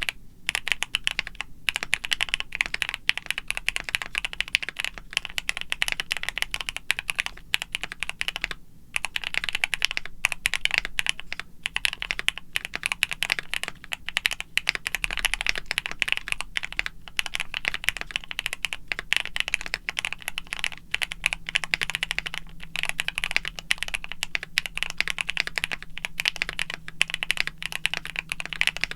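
Rapid typing on a keyboard: dense, irregular key clicks, broken by a few brief pauses.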